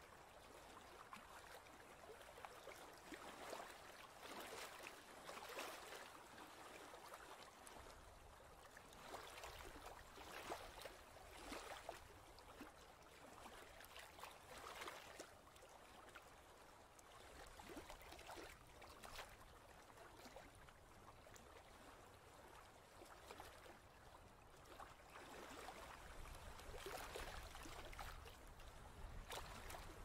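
Faint ocean-wave white noise, a soft hissing wash of water that swells and fades every few seconds, with a low rumble building near the end.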